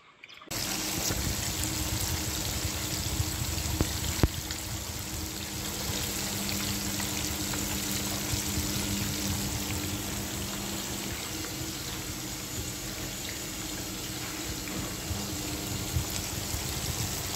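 Fish steaks deep-frying in a pan of hot oil: a steady sizzle with a few sharp pops. It starts suddenly about half a second in.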